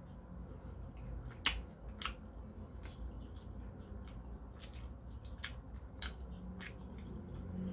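Cooked king prawn being peeled by hand: the shell cracking and snapping in a scatter of sharp clicks, the loudest two about a second and a half and two seconds in, with soft squishing of the flesh.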